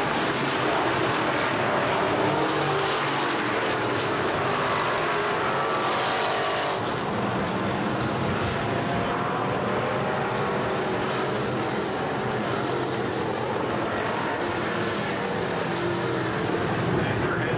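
Factory stock race cars running at racing speed in a pack, a steady engine din, with engine pitch sliding as cars pass by.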